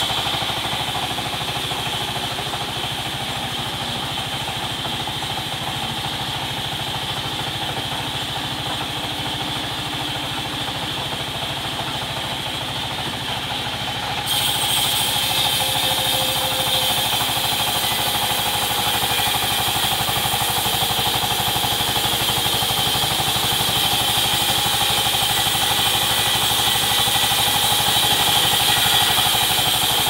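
Belt-driven band sawmill running, its blade cutting lengthwise through a large log in a steady, continuous whine and rasp. Partway through, the sound grows louder and hissier.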